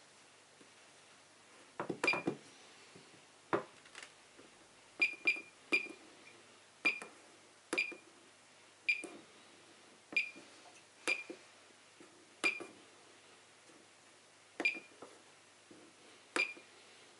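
A homemade airsoft bomb prop's keypad being pressed: about a dozen key presses, each a soft click with a short high electronic beep, spaced irregularly about a second apart, as its setup menu is stepped through. A few knocks and taps of handling about two seconds in.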